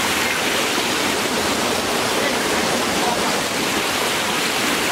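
Small creek waterfall spilling over rock ledges, heard close up: a loud, steady rush of splashing water.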